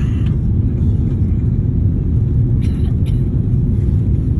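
Airliner cabin noise during the descent to landing: a loud, steady low rumble of the engines and the airflow, heard from inside the cabin by a window.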